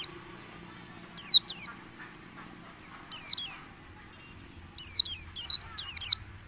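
White-eye (pleci) calling in short, sharp down-slurred notes: a pair about a second in, a cluster of three around three seconds in, then a quick run of about six near the end.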